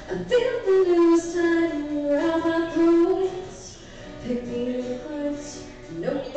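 A woman singing live into a microphone with guitar accompaniment, long held notes in two phrases.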